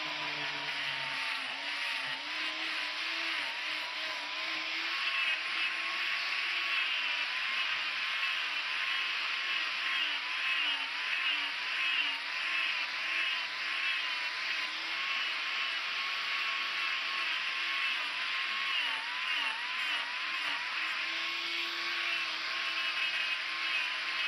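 Angle grinder with a carving disc hollowing out the inside of a wooden bowl: a steady motor whine over a grinding rasp, the pitch dipping again and again as the disc bites into the wood.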